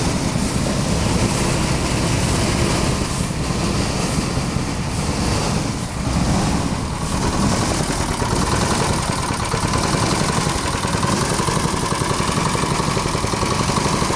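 Small single-cylinder petrol engine running steadily, driving a rice thresher with a shaking sieve through a V-belt and pulley. A thin, steady whine joins the engine noise about halfway through.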